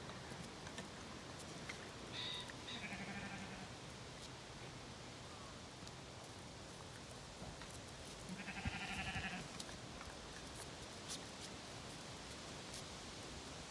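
Two faint bleats from Zwartbles sheep, one about two seconds in and one about eight and a half seconds in, each a wavering call lasting about a second.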